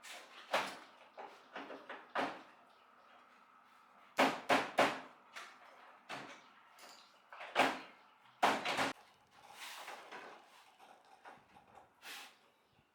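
Knocks and clatters of tools and fan parts being handled during a repair. They come scattered, some in quick runs of two or three sharp hits.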